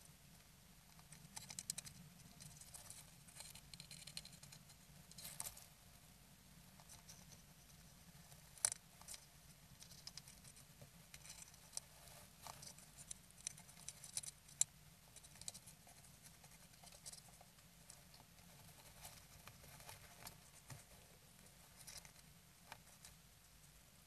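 Great tit shifting in its nest cup of dry grass and hay: soft crackly rustling and scattered sharp little clicks in short clusters, the sharpest click about nine seconds in.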